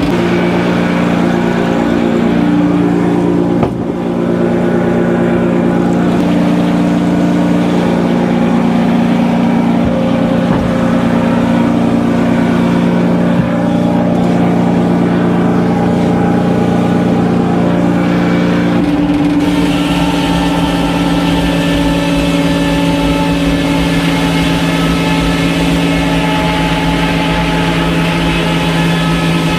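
Sawmill machinery running steadily, with an engine's sound holding an even pitch. About two-thirds of the way through its tone changes suddenly, taking on a brighter, higher-pitched edge.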